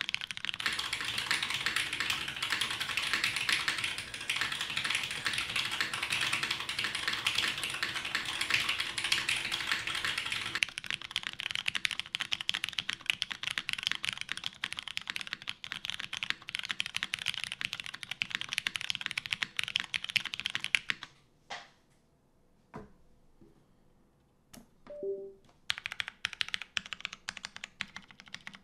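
Custom mechanical keyboard with lubed Cherry MX Brown tactile switches on a polycarbonate plate and GMK keycaps, typed on fast and continuously. About two-thirds of the way through the typing stops, leaving a few single key presses, then resumes as separate, spaced keystrokes near the end.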